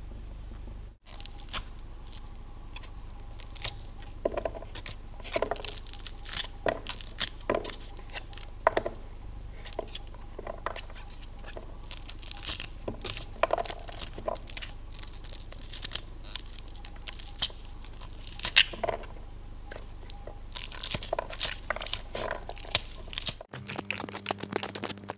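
White corn kernels being pushed off a halved cob with the thumbs: irregular crisp snapping and crackling as the kernels break away. It starts about a second in and stops shortly before the end.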